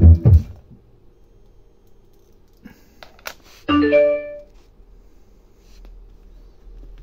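Electronic dance music playing from a modified vintage Pioneer car stereo cuts off about half a second in as its USB stick is pulled out. A sharp click follows near the three-second mark, then a short electronic chime of a few ringing notes from the stereo's added Bluetooth/USB module, the tone it gives on changing source.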